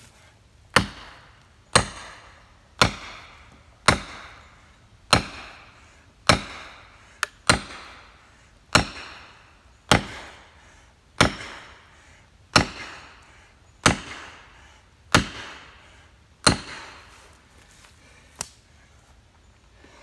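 A maul striking a felling wedge driven into the back cut of an oak tree, about fourteen heavy blows a little over a second apart, each ringing briefly, then one lighter hit near the end. The wedge is being driven to open the cut and lift the tree off a pinched chainsaw bar.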